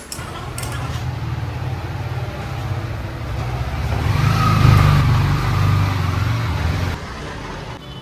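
A motor vehicle's engine running. It swells to its loudest about halfway through and drops away suddenly about a second before the end.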